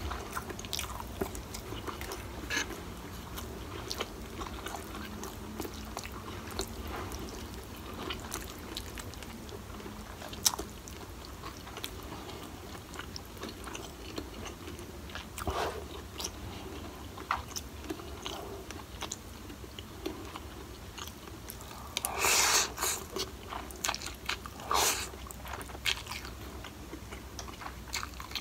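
Close-up eating sounds: a person chewing a mouthful of instant noodles and fried tofu, with small wet mouth clicks. A few louder noisy slurps come near the end, as noodles are sucked in.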